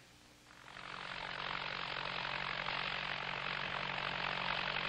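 Farm tractor engine running steadily, fading in about half a second in.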